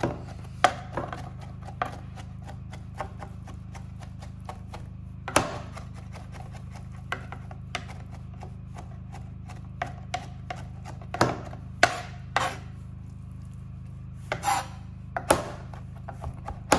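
Large kitchen knife chopping cooked spinach on a plastic cutting board: irregular sharp taps of the blade against the board, a few clearly louder than the rest.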